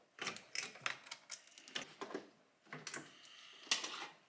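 Irregular plastic clicks and rattles as electrical connectors and bulb holders are unplugged from the back of a BMW E39 headlight, with the sharpest click near the end.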